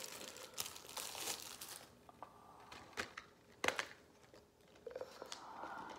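Faint crinkling of DVD packaging being handled, then two sharp clicks a little under a second apart about three seconds in.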